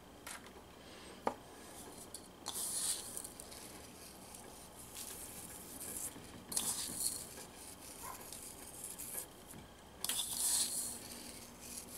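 Ground pink Himalayan salt sprinkled by hand over a raw beef roast on a cutting board, heard as three short hissing spills of grains spaced a few seconds apart, with one light click just over a second in.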